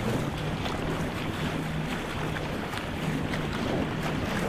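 Whitewater kayak being paddled downriver: river current rushing and splashing around the hull, with paddle blades dipping into the water and wind buffeting the camera microphone.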